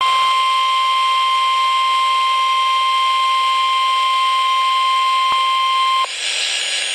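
NOAA Weather Radio 1050 Hz warning alarm tone: one loud, steady, single-pitched tone for about six seconds, the signal that a warning-level alert follows. It cuts off suddenly, leaving radio hiss.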